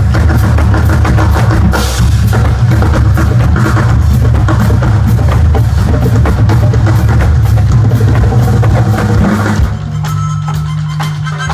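Live band music led by a drum kit, with dense bass drum and snare playing, loud. The drumming breaks off near the end, leaving a held low note.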